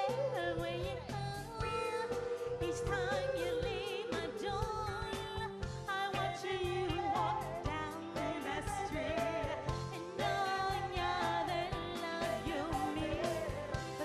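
Live soul-pop band playing, with women singing the melody into microphones over a steady beat. The held notes carry a wavering vibrato.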